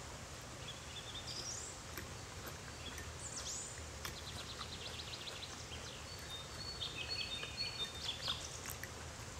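Birds chirping, with a fast trill and scattered short calls, over a steady low hum.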